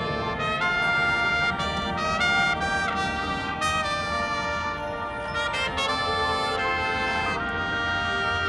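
Marching band brass section, trumpets and trombones, playing loud held chords that shift every second or two.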